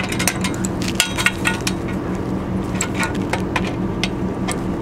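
Wrench turning a hex nut on a stainless steel solar mount bracket, giving irregular light metallic clinks and clicks as the nut is tightened. A steady low hum runs underneath.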